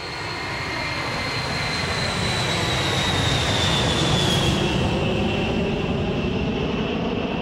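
A B-52 Stratofortress's eight jet engines passing. The engine noise grows louder over the first few seconds and then holds, while a high whine slowly falls in pitch.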